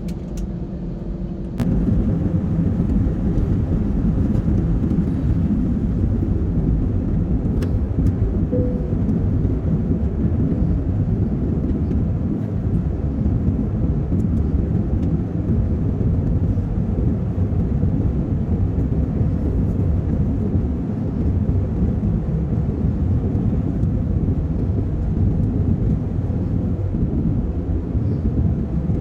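Airliner cabin noise: a steady rumble of jet engines and airflow, which jumps suddenly louder about two seconds in and then holds even.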